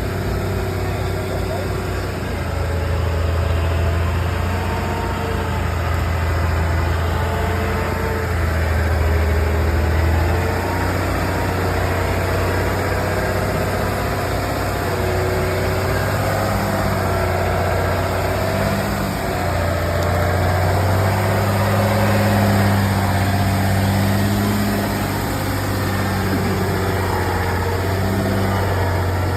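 Heavy truck engine running steadily: a continuous low drone with tones that rise and fall slowly.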